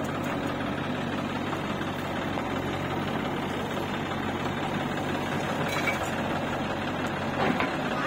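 Diesel engines of a farm tractor pulling a loaded soil trolley and a JCB 3DX backhoe loader running at a steady, low throttle with a knocking diesel note.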